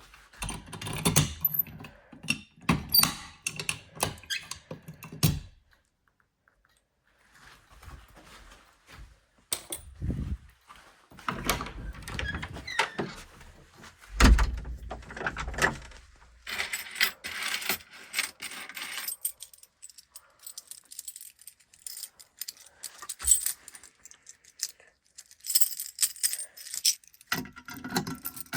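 Irregular handling noises, a jumble of rustling, clicks and knocks with a short lull about six seconds in; no alarm tone or voice message is sounding.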